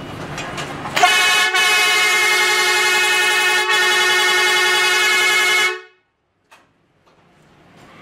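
Electric air pressure horn (truck air horn), freshly repaired, giving one loud, steady blast that starts about a second in, lasts nearly five seconds and cuts off. The horn is sounding properly again.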